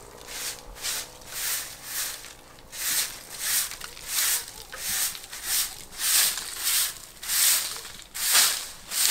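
A regular series of short, scratchy rubbing strokes, about one and a half a second.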